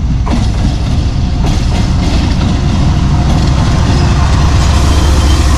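A diesel locomotive hauling a freight train passes slowly, at about 26 km/h. Its engine gives a deep, steady rumble that grows a little louder as it draws close.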